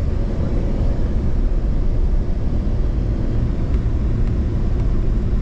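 Steady low rumble of road and engine noise from a car driving along at a constant pace, heard from inside the cabin.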